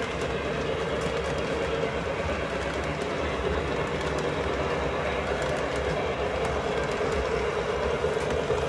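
Lionel O-gauge model train running on three-rail track: a steady rolling rumble of passenger-car wheels on the rails with faint ticking.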